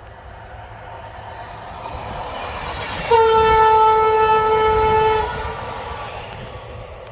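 Electric multiple-unit train approaching at speed, then sounding its Kockums Tyfon air horn in one steady blast of about two seconds on a single note. The train noise fades afterwards.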